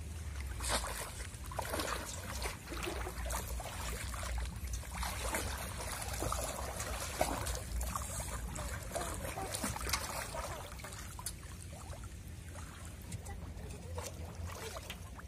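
Shallow water splashing and trickling in irregular bursts, the sound of people wading and working bamboo polo fish traps in the water.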